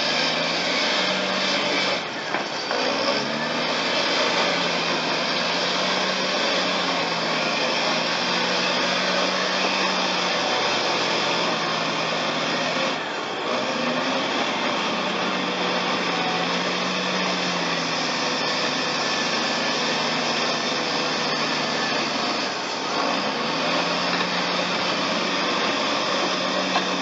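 Caterpillar D6T crawler dozer's diesel engine working under load as it pushes mud, its pitch rising and falling with the throttle, over a steady rushing hiss.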